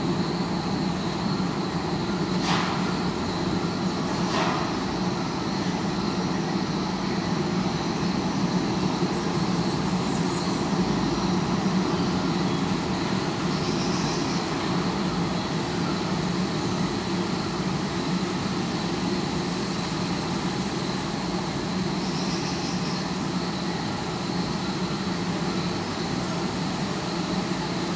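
Steady city traffic noise heard through a sound-mirror's acoustic listening horns, a continuous low rumble with a thin steady high tone over it. Two short sharp clicks come a few seconds in, and faint high chirps now and then.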